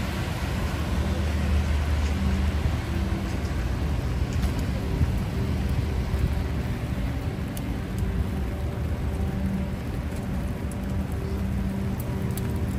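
Steady rain falling on a city street, with a low, even hum of traffic beneath it. A few sharp drops tap on the umbrella near the end.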